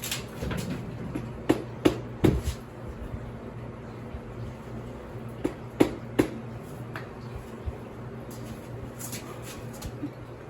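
Hand tools clinking and knocking against metal parts of a dirt bike's front fork and axle, in two short clusters of sharp clinks, while the nuts on the axle clamp caps are being undone.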